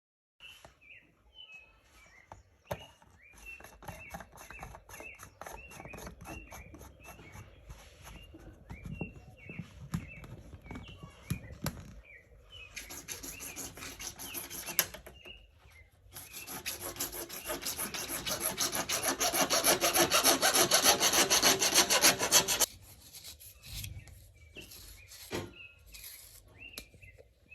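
Plastic pipe fittings being worked by hand, with a rapid rasping scrape in two spells; the second spell is longer and louder. Small chirps are heard throughout.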